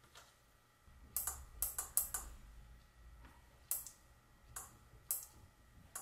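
About ten sharp clicks and taps at uneven intervals, like small hard parts and tools being handled, over a faint low hum.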